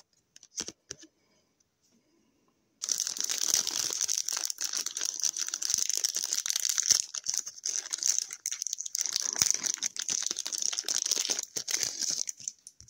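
Wrapper of a hockey card pack being torn open and handled, a dense crinkling of thin packaging from about three seconds in to near the end, with a short pause in the middle; a few light clicks come before it.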